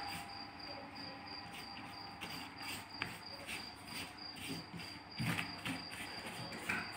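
A cricket chirping steadily, a high even pulse about three times a second. Over it come soft rustles and taps as galash (phyllo) sheets are handled on a metal tray and brushed with ghee, a little louder about five seconds in and near the end.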